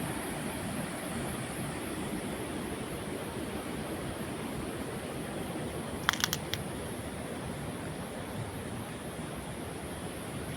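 Steady rush of flowing water heard from above, with a quick cluster of sharp clicks about six seconds in.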